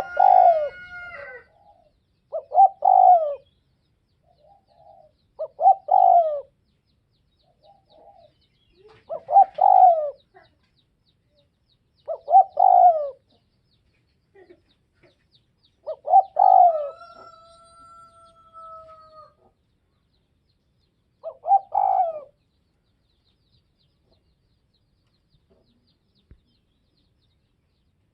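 Spotted dove cooing: seven short coo phrases about three seconds apart, with a longer gap before the last. After one phrase midway, a long level whistled note holds for about two seconds.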